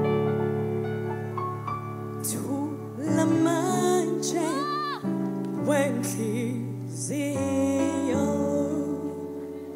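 Slow gospel music: held keyboard chords with a woman singing over them, her voice sliding through runs in the middle.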